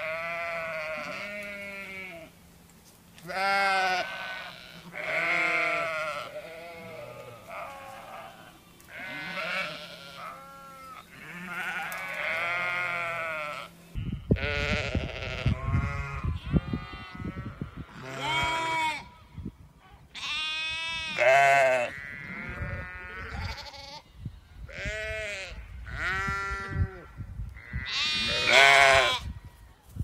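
A flock of sheep bleating: many wavering calls, one every second or two, some overlapping. From about halfway through, a low rumble runs under the bleats.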